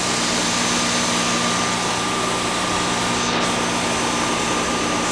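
An engine running steadily with a constant hum over a noisy drone, holding one pitch with no revving.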